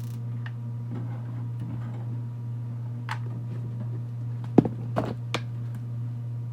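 Kitchen items knocking and clinking a few times, the loudest knock about four and a half seconds in with two or three more right after it, over a steady low hum.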